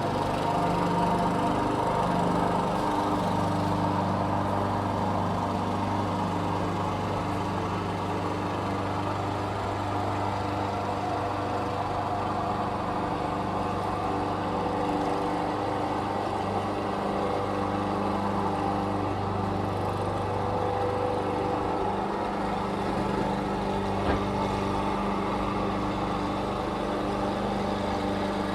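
Lawn mower running steadily, its engine note wavering slightly in pitch.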